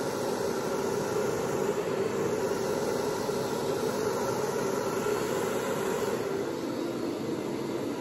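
Hair dryer fitted with a concentrator nozzle running steadily on its low setting, blowing air across wet acrylic paint; a little fainter near the end.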